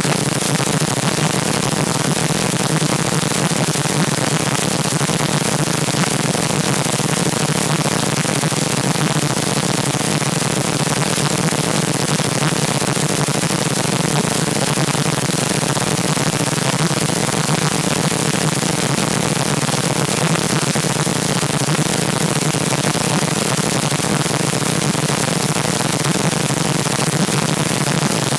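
Loud, harsh static-like noise that holds steady and unchanging, with a buzzy low band under the hiss.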